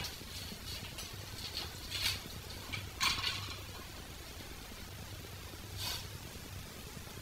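Faint hand-work noises on a dirt bike: a few short rustles and scrapes of small parts being handled, about two, three and six seconds in, over a low steady hum.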